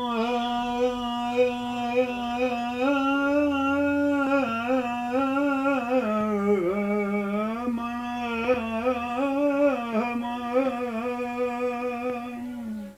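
An elderly man singing a traditional Cypriot ballos song, unaccompanied: one continuous phrase held mostly on one note, ornamented with small wavering turns and a dip in pitch about halfway.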